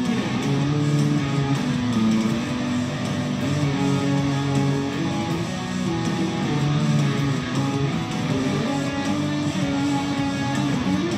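Electric guitar played as a lead line, mostly held notes that change pitch every half second or so, with a few slides between them.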